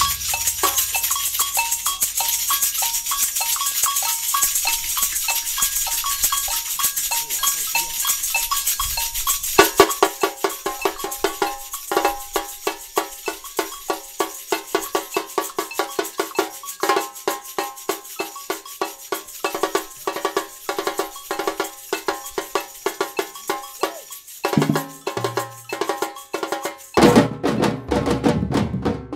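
Samba batucada percussion group playing: two-tone agogô bells and a high shaker rattle carry the pattern. About ten seconds in, the drums join with steady, evenly spaced strokes. Near the end everyone plays a denser, louder passage that stops abruptly.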